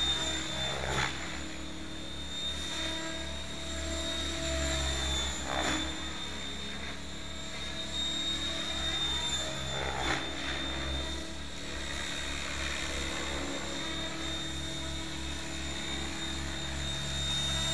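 Electric Mikado Logo 600 radio-controlled helicopter in flight: a steady high motor whine over the drone of the rotor. The rotor sound swells briefly three times as the helicopter manoeuvres.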